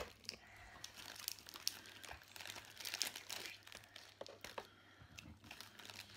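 Clear plastic candy packaging crinkling as it is handled and picked at by hand, with irregular crackles throughout.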